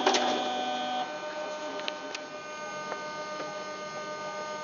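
Steady electrical hum and whine from a standing Centovalli Railway electric train's equipment. A pitched tone sounds over it until about a second in, and a few faint clicks follow.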